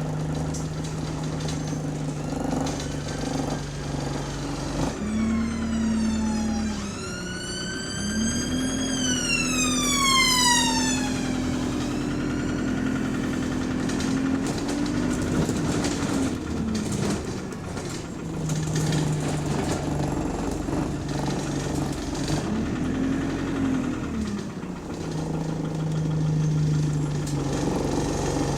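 Bus diesel engine running under way, its note stepping and rising and falling as the bus pulls away and changes gear. About five seconds in, a high whine rises briefly and then falls away over several seconds as the bus slows.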